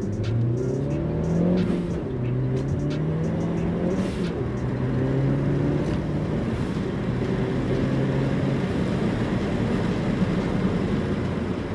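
Ford Focus ST's turbocharged 2.0-litre four-cylinder accelerating through the gears of its manual gearbox, heard from inside the cabin: the engine note climbs, drops back at each upshift and climbs again, about three times.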